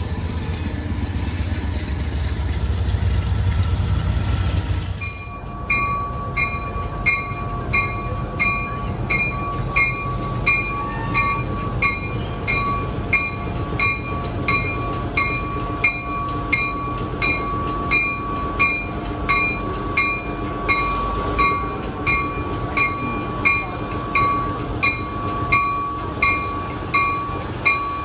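A train's heavy low rumble for about five seconds, then a railway bell ringing in a steady, even rhythm of about one and a half strikes a second.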